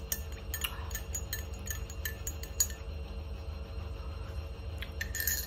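Metal spoon clinking against the inside of a coffee mug as coffee is stirred: a quick run of light clinks over the first couple of seconds, then a few sparser ones, with one sharper clink about halfway through.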